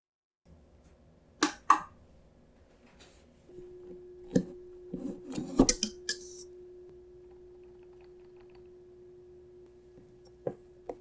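Scattered sharp clicks and knocks of things being handled in a kitchen, a quick pair early on, a cluster of clinks midway and two near the end, with a faint steady hum setting in partway through.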